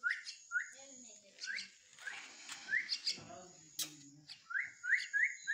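Common myna fledgling giving short, rising begging chirps, about eight in a row, coming faster near the end.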